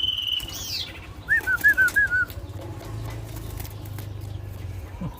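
Common iora (cipoh) calling: a long held whistle ends just after the start, then a short swooping note, and about a second in a quick run of six slurred chirps. A low rumble with scattered clicks follows.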